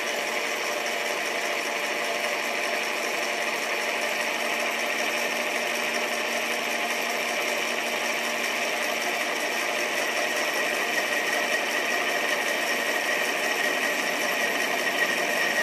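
Metal lathe running steadily with a constant whine, its chuck spinning a bar of metal stock while the cutting tool is run in to scribe a line on it.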